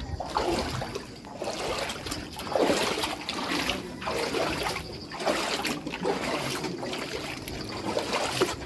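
Floodwater sloshing and trickling in uneven surges.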